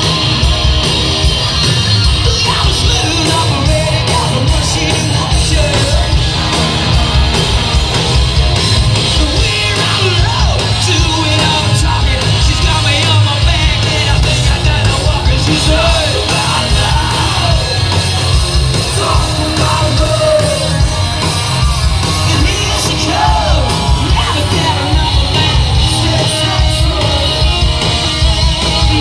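Live hard rock band playing loud, with a male singer's vocals over electric guitars, bass and drums, heard from the audience.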